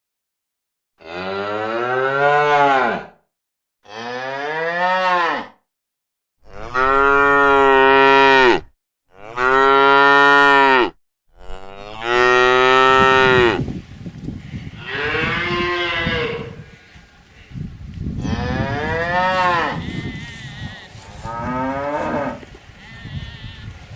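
Cattle mooing: a string of long moos, each one or two seconds. The first five are separated by silence, and from about halfway the moos come over a steady background noise.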